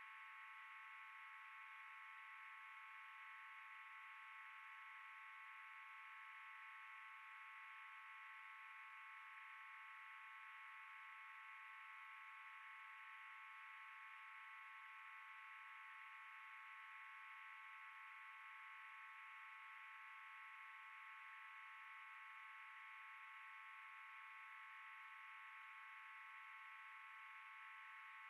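Near silence: a faint steady electronic whine of several high tones over hiss, unchanging throughout.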